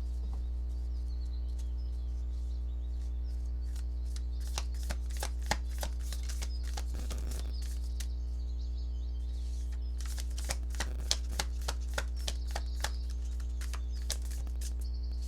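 Reading cards and crystals being handled by hand: two runs of light clicks and taps, with a brief rustle between them, over a steady electrical hum.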